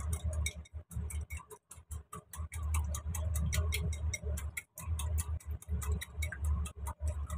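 A small whisk clicking fast against a ceramic bowl as eggs are beaten, about seven strikes a second, with a few short pauses.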